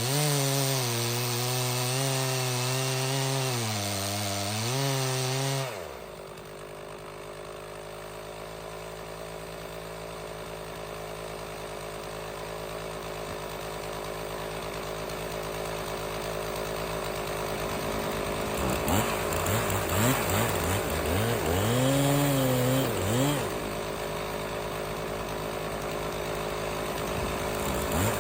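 Stihl 066 two-stroke chainsaw running at full throttle with its pitch wavering under load as it cuts oak, then dropping suddenly to idle about six seconds in. It idles steadily, then is revved in several short blips and one longer rev in the second half.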